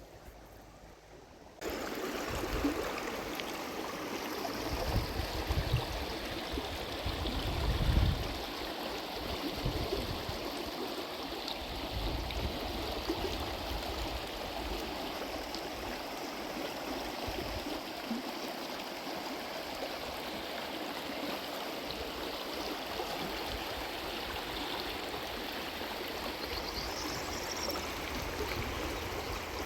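Steady rush of running water, like a stream, starting abruptly just under two seconds in. Low rumbles come through underneath, loudest about eight seconds in.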